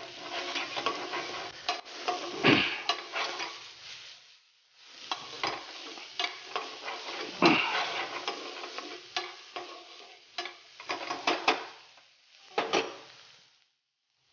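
A spatula stirring and scraping minced cauliflower around a non-stick frying pan as it sizzles in oil, with sharp strokes of the spatula against the pan. There is a short break after about four seconds, and the sound dies away near the end.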